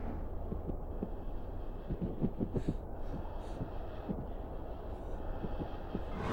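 Low, steady droning rumble of horror-film sound design, with a run of soft low thuds about two to three seconds in.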